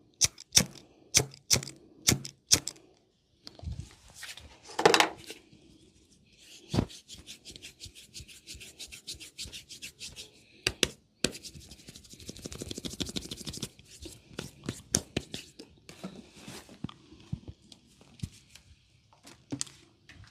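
A barber's hands at work in a massage, striking and rubbing skin: a run of sharp strikes about two a second, one loud hit, then fast fine tapping and a stretch of rubbing, with scattered strikes near the end.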